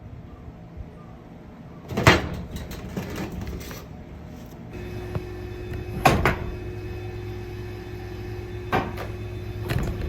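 Four sharp knocks or clanks, the first about two seconds in. About halfway through, a motor starts and runs with a steady hum.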